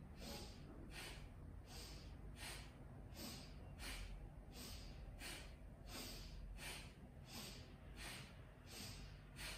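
Faint, even breathing through the nose, about two breaths a second. The inhales and exhales are paced with a seated side-to-side swaying exercise.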